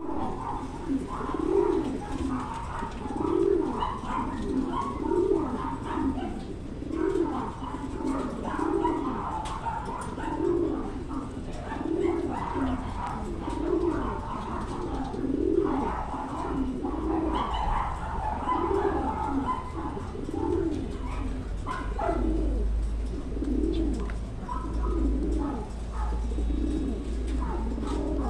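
Domestic racing pigeon cock cooing over and over, a low rolling coo repeated about every two seconds, the bow-coo of a male courting a hen. A low rumble comes in about two thirds of the way through.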